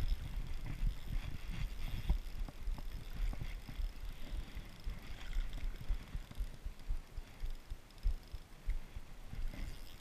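Spinning reel being cranked close to the microphone during a lure retrieve, with irregular low knocks and rubbing from the reel and the angler's arm moving against the body-worn camera.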